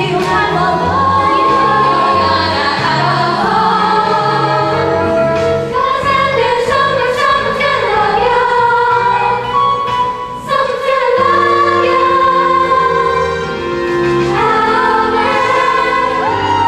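Music from a stage musical: a group of voices singing over instrumental accompaniment, with held notes and a steady bass line.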